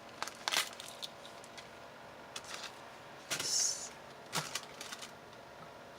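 Handling noise from craft kit items being picked up and shown: a few light clicks and taps, with a short rustle of packaging about three and a half seconds in.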